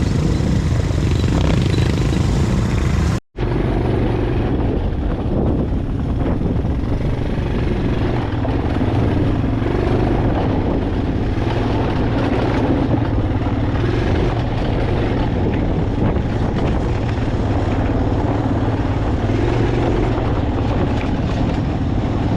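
Vehicle engine running steadily under loud, continuous noise from riding, broken by a brief cut about three seconds in.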